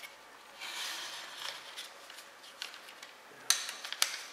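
A slip of paper rustling and scraping as it is slid between the 3D printer's nozzle and the taped print bed to check the nozzle-to-bed gap, with small ticks, then two sharp clicks about half a second apart near the end.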